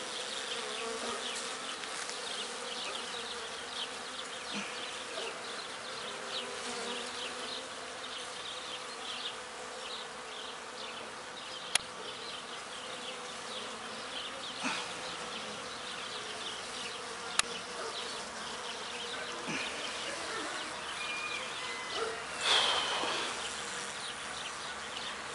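Honey bees buzzing steadily around an opened hive, with single bees zipping close past the microphone; the colony is agitated. Two sharp clicks come midway, and a brief louder burst near the end.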